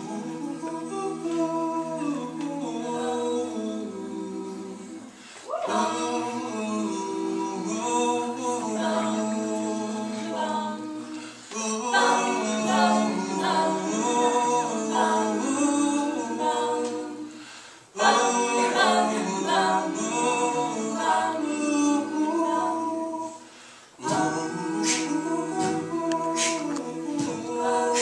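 A cappella vocal group singing sustained chords without words, in phrases of about six seconds, each ending in a brief break before the next.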